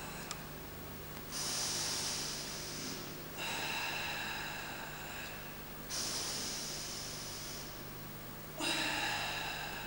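Four forceful, breathy exhalations, each starting suddenly and fading over a second or two: the controlled tension breathing of Hangetsu kata, made in time with its slow, tensed techniques. A steady low hum runs underneath.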